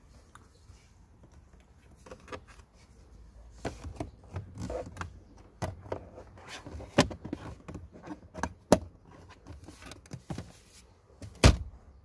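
Hard plastic clicks, knocks and scrapes as a car's cabin air filter cover is fitted back in behind the glove box, with the loudest knock near the end as the glove box is shut.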